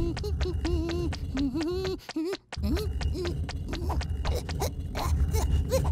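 Cartoon sound effects of a little chick scurrying: a quick patter of small footsteps, about five or six taps a second, with short squeaky chick grunts and a low rumble underneath. There is a short break about two seconds in.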